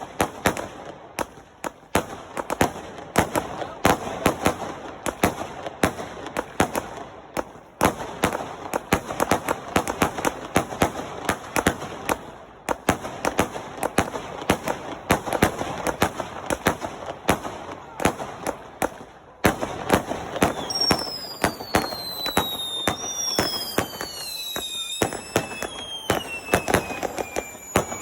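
Firework display: a dense, rapid barrage of crackling bangs. From about two-thirds of the way in it is joined by several whistling fireworks, each whistle falling in pitch.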